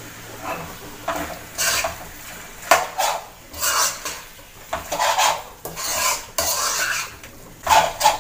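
A metal spoon stirring and scraping thick chicken masala around a metal kadai, in quick, irregular strokes of about two a second, with an occasional sharp clink of spoon against pan.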